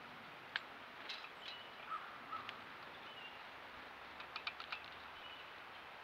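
Small birds giving brief high call notes, with scattered sharp taps of birds pecking and clinging at a wire-mesh peanut feeder, several taps in quick succession a little past the middle.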